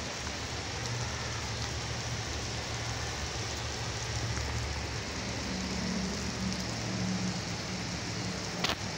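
Steady rain falling on pavement, an even hiss with a low hum underneath and a single sharp click near the end.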